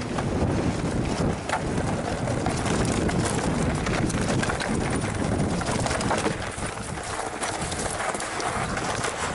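Mountain bike riding over a rough, stony trail: tyres crunching and the bike rattling with many irregular knocks, with wind on the microphone.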